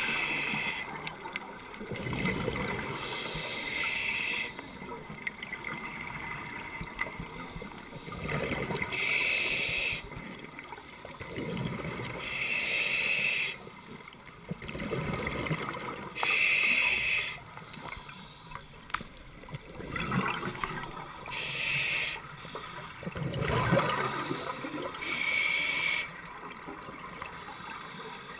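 Scuba diver breathing through a demand regulator underwater: a short hiss and a gurgling rush of exhaled bubbles come in turn, a breath every four seconds or so.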